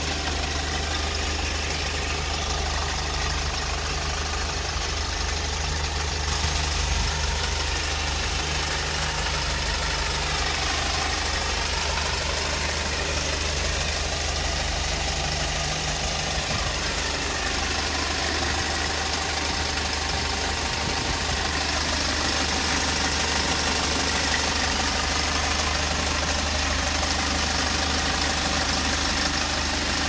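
Kia Bongo III truck's four-cylinder diesel engine idling steadily.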